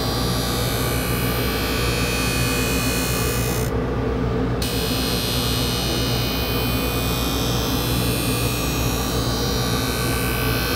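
Skate-sharpening machine running: a steady motor hum with several held tones under a grinding hiss, as a hockey skate blade is drawn along the grinding wheel in slow passes.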